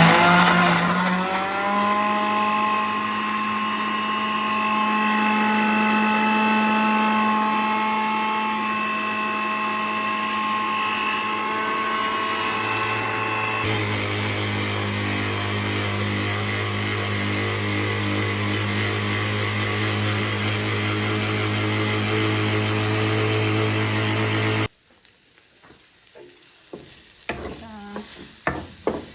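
Kitchen blender blending tomatoes: the motor spins up with a rising whine, runs steadily, drops in pitch about halfway through, and cuts off suddenly with about four seconds left. Faint frying sizzle follows near the end.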